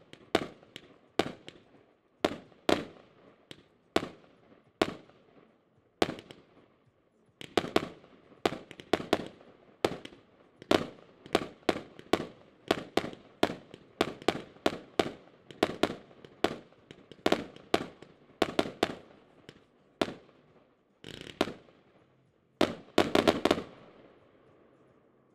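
A 100-shot, 1-inch Triplex TXB574 Sky Event firework cake firing: sharp bangs of shells bursting, about one to two a second, with a short pause about six seconds in. A fast flurry of bangs comes near the end, then the firing stops.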